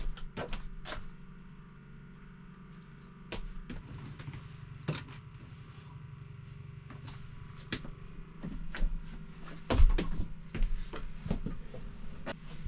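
Scattered knocks, clicks and clunks of people handling things in a small ice fishing house, the loudest a thud about ten seconds in, over a steady low hum.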